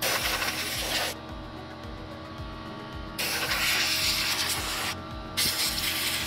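Compressed air hissing from a blow-gun nozzle on an air compressor hose, blowing dust out of a computer case. It comes in three blasts: about a second at the start, a second and a half from about three seconds in, and another beginning near the end.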